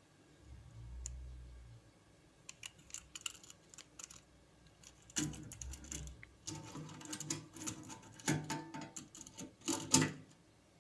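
Irregular clicks and rattles of small hard parts being handled, growing denser in the second half with a sharp click near the end. A brief low rumble comes in the first couple of seconds.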